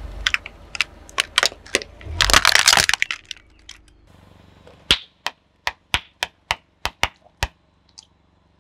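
Something brittle cracking and breaking as a car tyre crushes it: a loud crunching burst about two seconds in, then a run of about a dozen sharp, separate cracks.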